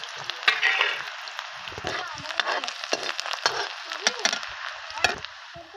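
Chopped onion and spice seeds sizzling and crackling in hot oil in an aluminium kadhai, with a steel ladle stirring through them in the second half.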